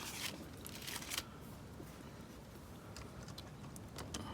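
Faint rustling and a few light clicks of a wire being fitted to the spring terminals of a 1980s Radio Shack electronics kit, busiest in the first second.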